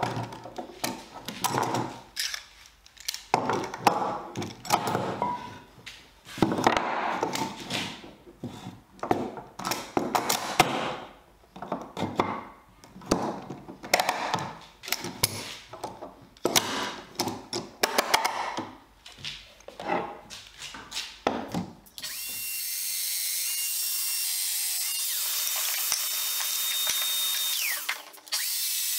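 Bench-dog lever clamps clicking and knocking as they are set into the workbench holes and tightened on pine pieces, for most of the stretch. About 22 s in, a Festool Domino joiner starts and runs steadily with its dust hose attached, dropping out briefly near the end.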